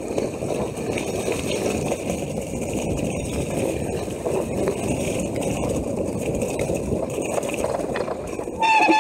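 Mountain bike riding down a rough, wet forest trail: a steady rumble of tyres over the ground with the clatter and rattle of the bike. Near the end a louder, high-pitched sustained sound starts.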